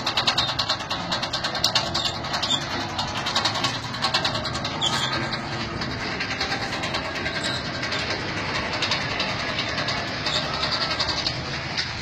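Blacksmith's forge fire: a steady rushing noise with a dense crackle of fine clicks, the crackle busiest over the first few seconds.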